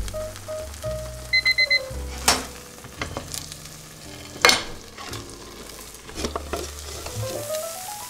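Chijimi batter sizzling in oil in a frying pan. A digital kitchen timer beeps four quick times about a second and a half in, as its countdown runs out. Sharp clatters of a plate and the pan being handled follow, the loudest about four and a half seconds in.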